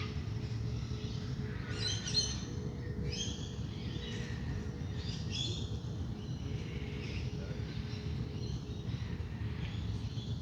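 Wild birds of a dawn chorus calling in short chirping bursts over steady low background noise. A soft singing-bowl tone is held underneath.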